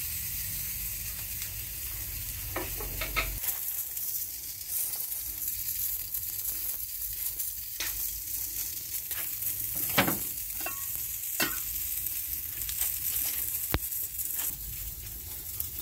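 Pieces of dried fish sizzling steadily as they fry in a wok, with a few sharp taps and clicks scattered through. A low rumble underneath stops about three seconds in.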